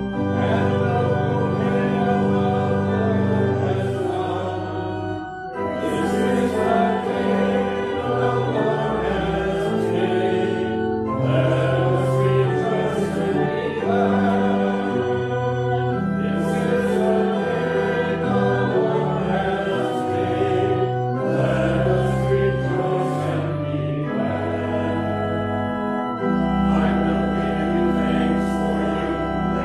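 Voices singing together in a sung psalm, with sustained instrumental accompaniment, in phrases with short breaks between them.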